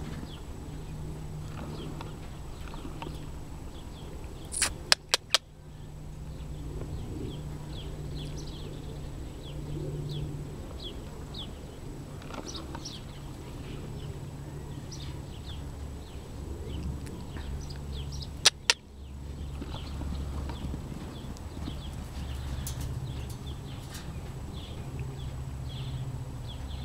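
Small birds chirping throughout over a steady low rumble, with miniature horses moving about on soft dirt. Loud sharp clicks come in two quick clusters, about five seconds in and again near eighteen seconds.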